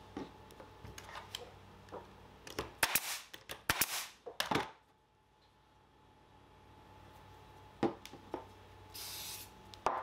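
Light handling clicks, then a cluster of loud, sharp cracks about three to five seconds in. Near the end comes a short hiss of an aerosol spray can.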